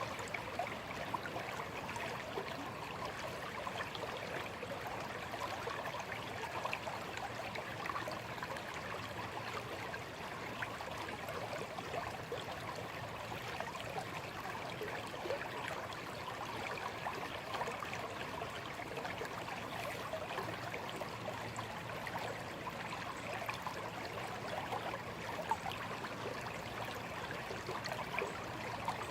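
A small, shallow stream flowing steadily, a constant babble of water trickling and gurgling over stones.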